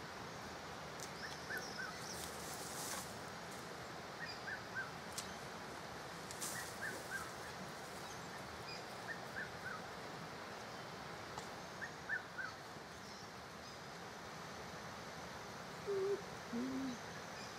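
Spotted eagle-owl giving a low two-note hoot near the end, the second note lower than the first. Before it, a small bird repeats a short, high three-note call every two to three seconds.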